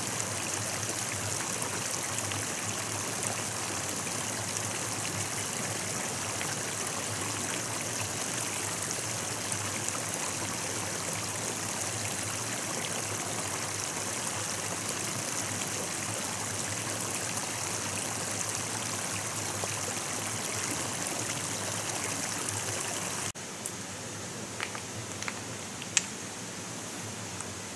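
Stream water running steadily. About 23 seconds in it cuts off abruptly to a quieter, even hiss with a few faint clicks.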